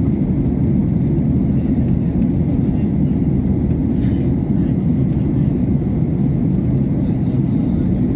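Airliner cabin noise in flight: a steady, low, even rumble of engines and airflow heard at a window seat.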